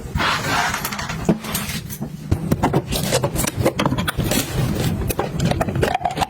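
Objects handled close to the microphone: a brief scrape at the start, then a busy run of sharp clicks and taps, typical of packaging and containers being unpacked and set down.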